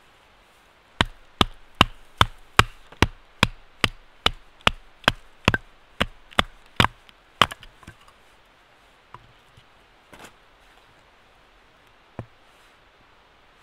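Batoning: a wooden stick striking the spine of a large knife set across an upright log to split it for kindling. About sixteen sharp knocks come in an even run, some two and a half a second, and stop after about six seconds. A few weaker single knocks follow.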